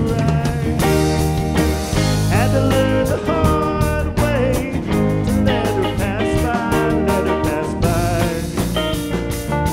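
Live rock band playing, with electric guitars, bass and drums and a lead vocal. The playing holds steady throughout, with a quick rising guitar or vocal slide a couple of seconds in.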